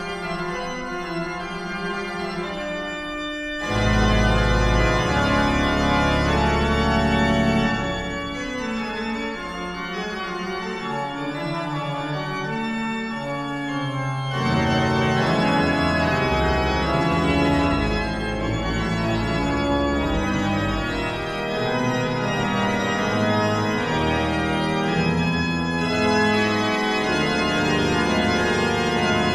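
Pipe organ music: sustained chords that change every second or so. A deep pedal bass comes in about four seconds in, thins out around eight seconds, and returns louder about halfway through.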